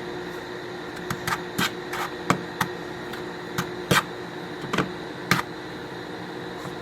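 Irregular light taps and clicks, about a dozen over four seconds, from scooping powdered puppy milk replacer into a bowl. A steady hum runs underneath.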